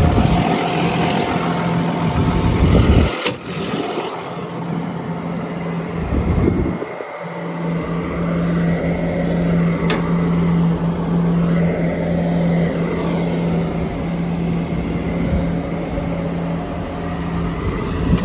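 Caterpillar D6N bulldozer's diesel engine idling with a steady hum. There are two sharp clicks, a few seconds in and again about halfway through.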